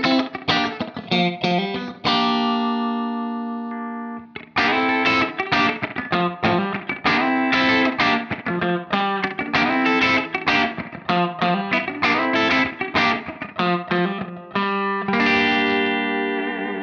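James Tyler Japan Studio Elite HD electric guitar playing a clean funk rhythm of short, choppy chord stabs. A chord is left ringing for about two seconds near the start and cut off, and a final chord rings out near the end.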